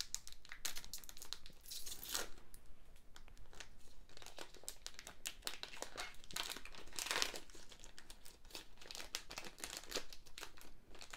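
A trading-card booster pack's foil wrapper being torn open and crinkled in the hands: an irregular run of crackles, with louder bursts about two seconds in and again about seven seconds in.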